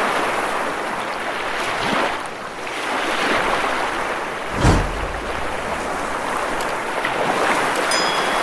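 Sea waves breaking and washing against rocks, a steady rushing surf that swells and ebbs, with a sudden deep thump about halfway through.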